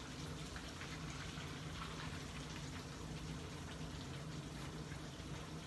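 Breaded chicken breast frying in oil in a pan on a gas burner, a steady sizzle.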